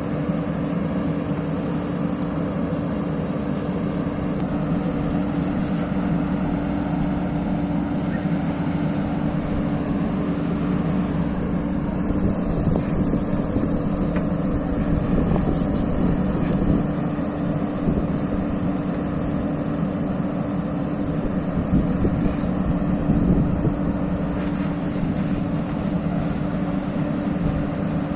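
Diesel engine of a JCB backhoe loader running steadily under work, a constant low hum with a steady droning tone.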